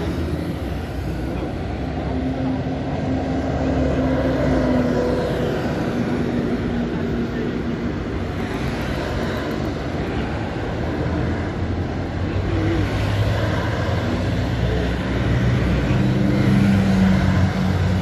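City street traffic, with cars and city buses driving past. Near the end a bus engine's low running grows louder as a bus draws close.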